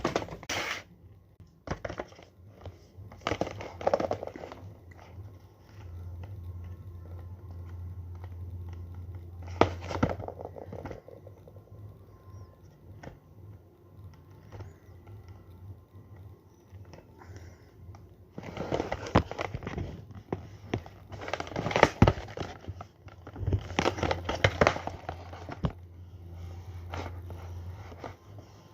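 Crinkling and rustling of sticker packaging being handled and opened, in irregular bursts with the busiest stretch in the last third. A low steady hum runs underneath for several seconds at a time.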